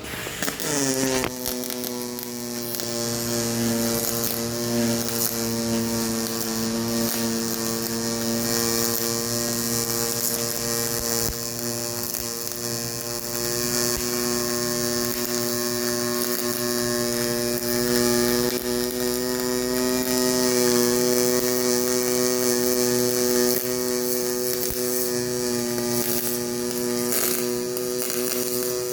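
HTP Pro Pulse MIG welder's pulsed arc laying a long continuous bead on mill-scaled steel pipe: a steady pitched buzz that strikes up suddenly, settles slightly lower in pitch within the first second, then holds, with light crackle over it.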